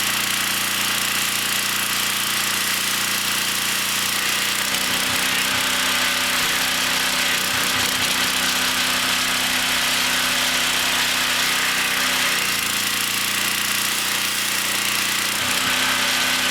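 Ridgid RD80702 pressure washer's Robin engine with electronic fuel injection running steadily. Its note shifts pitch a few times, about 4 seconds in, near 12 seconds and again near the end.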